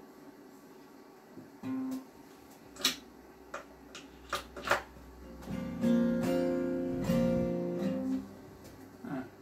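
Acoustic guitar played sparsely: a single short note, a few sharp clicks from hands on the instrument, then a few notes and chords ringing for about two and a half seconds past the middle before dying away.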